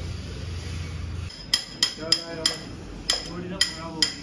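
A hammer striking metal parts of a motorcycle: a run of sharp, ringing metallic blows, about two to three a second, starting about a second and a half in.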